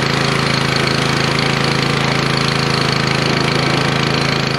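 Gas pressure washer's small engine running steadily under load while the wand sprays a high-pressure water jet, the hiss of the spray over the engine's even note.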